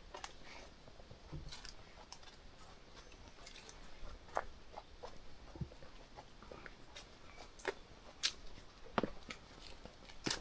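Footsteps crunching on a mountain hiking trail: irregular crisp steps and scuffs, a few of them louder, over faint outdoor background.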